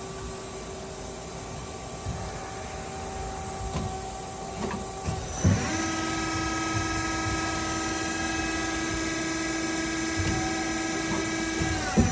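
Nakamura-Tome SC-250 CNC turning center under power: a steady hum, then about halfway a clunk and a motor comes up to a steady whine. The whine winds down quickly with another clunk near the end.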